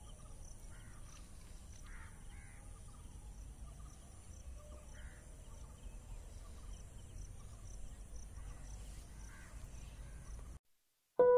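Faint dusk ambience over open country. Birds call a few times in short caw-like notes against a steady high insect chirring and a low wind rumble. Near the end it cuts to silence and a soft piano-like music note begins.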